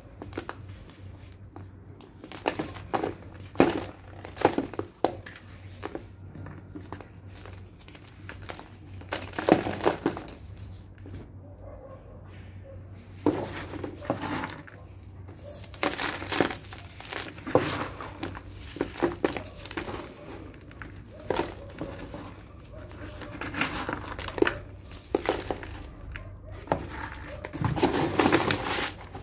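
Dry lumps of sand-and-cement mix crushed and crumbled by hand on a sheet in a plastic tub: irregular gritty crunches and crackles, with the sheet crinkling under the hands, coming thickest near the end.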